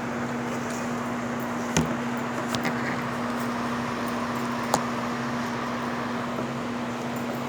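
Steady hum of a fan or air cooler with a constant low tone, and a few short sharp clicks from eating off a plate, at about two, two and a half and nearly five seconds in.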